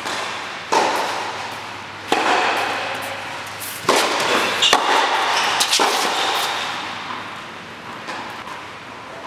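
Tennis rally: sharp hits of the ball off racket strings and court, about five of them, one every second or two, each ringing on in the echo of a large indoor tennis hall. The rally dies away over the last few seconds.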